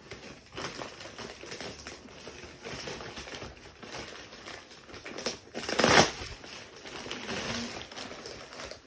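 Cardboard shipping box and its packaging being handled: irregular rustling, crinkling and scraping, with one loud, sudden rasp about six seconds in.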